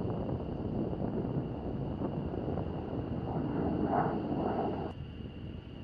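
Jet noise of an AV-8B Harrier II's Pegasus turbofan on its takeoff run and climb-out, a steady rushing noise heard from a distance. It grows loudest about four seconds in, then drops off abruptly near the end.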